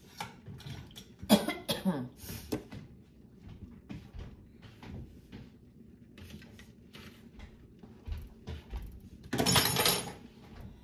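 Kitchen handling noises: scattered light clicks and knocks, a short cough-like sound about a second in, and a louder harsh clattering scrape near the end.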